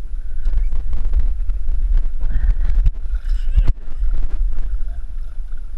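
Wind rumbling on the camera microphone, with water splashing and sloshing as a tarpon is held in the water alongside the boat. A sharper thump comes about three and a half seconds in.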